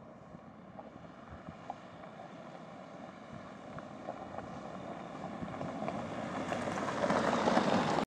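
Land Rover Discovery Sport SUV driving toward the listener on a dirt and gravel track: engine and tyre noise growing steadily louder as it approaches, with a few small clicks of stones under the tyres.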